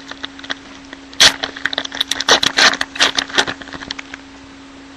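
Sports trading cards being handled and flipped through: a quick, irregular run of sharp clicks and snaps as the cards strike and slide against each other, starting about a second in and stopping about four seconds in.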